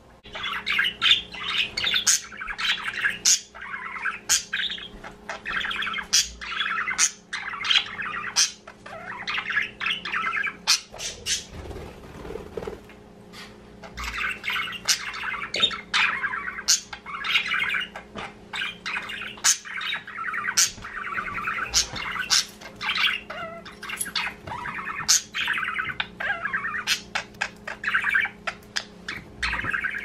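Several budgerigars chattering and warbling together: a dense run of chirps, squawks and sharp clicks, with a short lull about halfway through.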